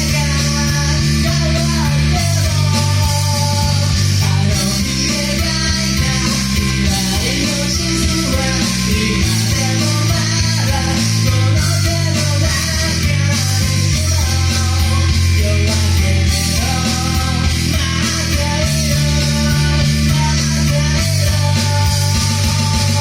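Loud rock music with electric guitar and a heavy, steady bass line.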